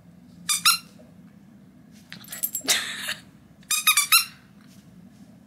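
A dog's squeaky toy ball squeaked in short bursts as it is bitten or squeezed: a quick double squeak about half a second in, then clusters of squeaks around two and four seconds in.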